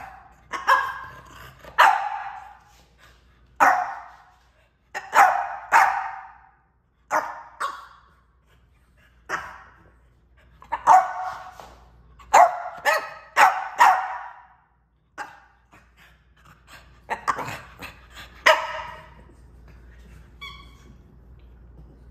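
French bulldog puppy barking repeatedly, short sharp barks in irregular clusters, stopping about three seconds before the end.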